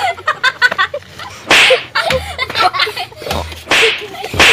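Slapstick blows with a plastic water bottle: two swishes about two seconds apart, then a sharp smack near the end, amid laughter and talk.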